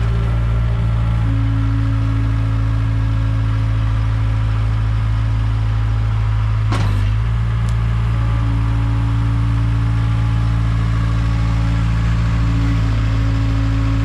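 Case 410 skid steer's diesel engine running steadily at a constant speed, with a higher steady tone coming and going twice as the loader arms are worked, and one sharp clunk about seven seconds in.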